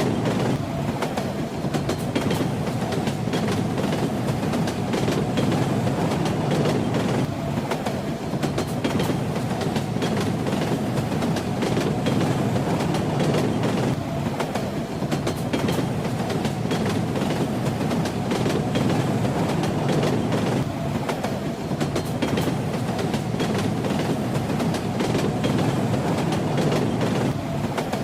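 Train running along the track: a steady rumble with the clickety-clack rattle of its wheels over the rails.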